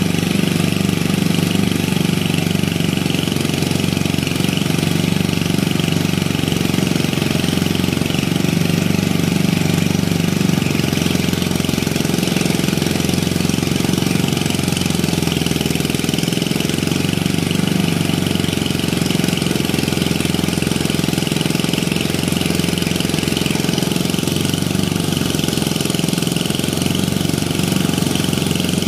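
Small stationary engine running at a steady speed to drive a paddy (rice) thresher as the crop is threshed.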